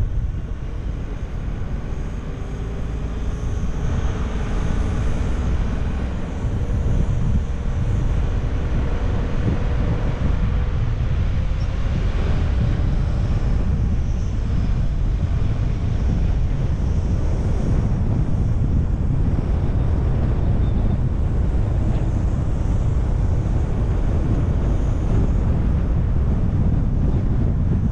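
Steady low rumble of a car on the move: wind buffeting the microphone together with road noise, with a faint engine hum that fades out about ten seconds in.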